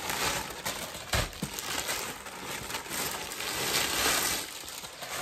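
Plastic packaging rustling and crinkling as a bag in a clear plastic dust wrap is pulled out of a white poly mailer and handled, with a soft thump about a second in.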